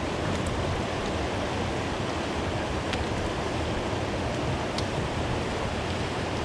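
Steady rushing noise of river water, even and unbroken, with a couple of faint ticks about three and five seconds in.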